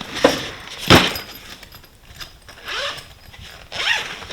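Tools and gear being handled and shifted in a tool box: a sharp knock about a second in, with lighter clicks and rattles after it.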